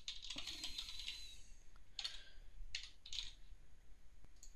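Typing on a computer keyboard: a scattering of irregular keystrokes.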